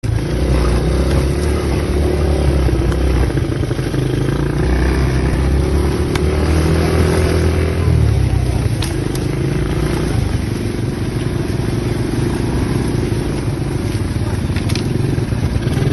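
ATV engine running under way, its pitch shifting a few times with the throttle.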